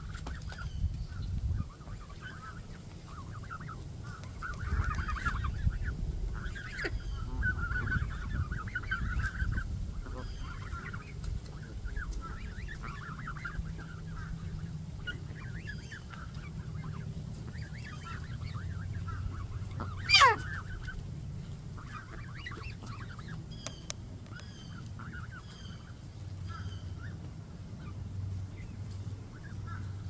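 A flock of Canada geese and goslings calling softly in short, scattered bursts. About twenty seconds in comes one loud, brief falling squeal.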